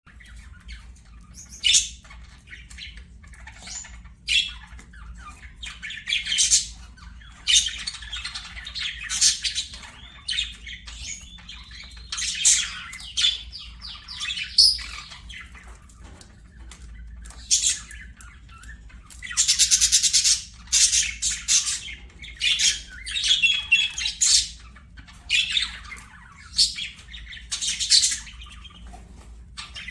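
Budgerigars chattering and squawking, a busy run of short, harsh, high calls and warbles with brief pauses between them, over a faint low hum.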